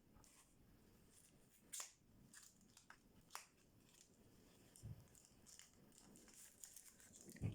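Faint rustling of plastic packaging and a few light clicks as small camera accessories are unpacked and handled, with a soft thump near the end.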